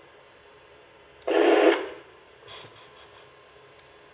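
A two-way FM radio's speaker gives a short burst of static hiss, a little over half a second long, about a second in, with a faint click afterwards over a low steady hiss.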